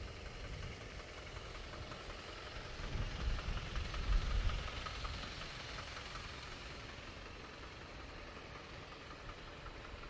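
A motor vehicle passing by: its low engine rumble and road noise swell to a peak about halfway through and then die away slowly.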